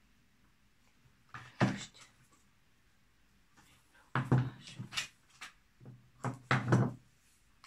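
Handling noise: a short rustle and knock about a second and a half in, then two longer runs of rustling and bumping in the second half.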